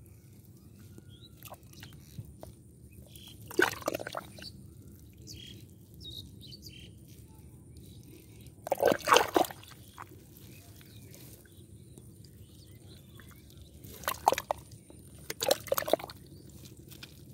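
An arm working inside a small mud- and water-filled hole: four short bursts of sloshing and squelching in muddy water, the second the longest.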